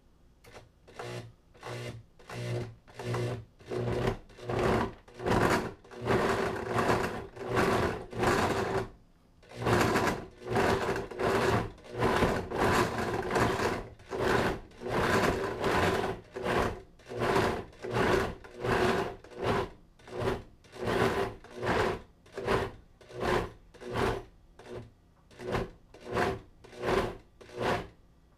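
Blendtec Designer 725 blender pulsing chunky chicken salad ingredients (chicken, apple, celery, walnuts), chopping them down. The motor comes on and cuts off in short pulses, roughly one to two a second, at varying pulse speeds, with a short pause about nine seconds in.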